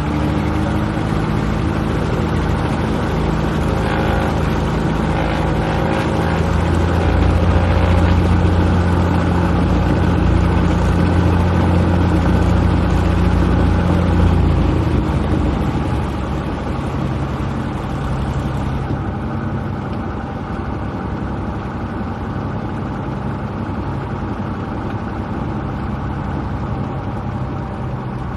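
Piston engine and propeller of a single-engine light airplane, heard from inside the cabin, running steadily. The engine grows louder about a quarter of the way in, holds there for several seconds, then settles back to a lower, steady drone.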